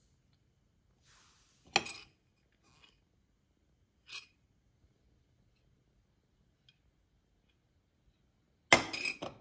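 Sharp clinks of small hard objects being handled: one about two seconds in, a fainter tap about four seconds in, and a louder quick cluster of clinks near the end.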